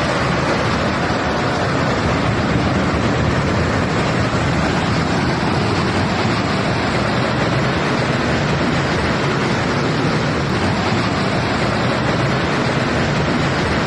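Strong storm wind blowing steadily, with a low rumble of wind buffeting the microphone.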